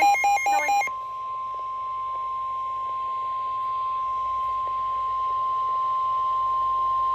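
End of an Emergency Alert System SAME data header, warbling digital data tones that stop about a second in. The single steady NOAA Weather Radio alert tone (1050 Hz) then begins and holds, growing slightly louder, over faint radio hiss.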